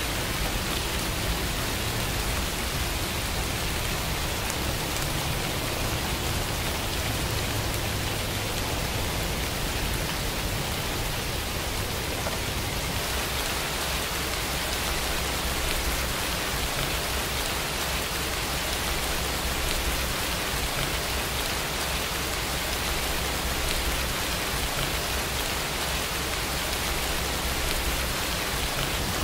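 Steady rain falling: a continuous, even hiss with a low rumble underneath.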